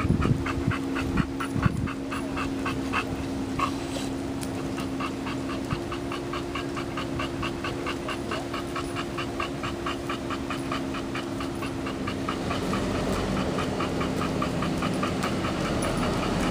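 A dog panting fast and steadily close to the microphone, about four breaths a second, fading out about twelve seconds in. A steady low hum runs underneath.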